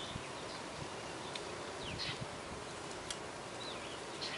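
Faint outdoor background hiss with a few short, high chirps scattered through it and a couple of light clicks.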